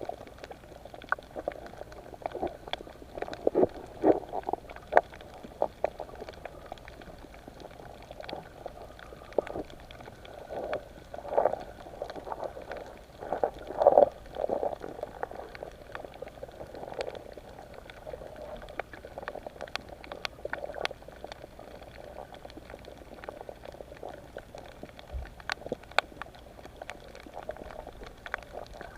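Underwater water noise: irregular bubbling and gurgling, with louder surges of bubbles and scattered small clicks.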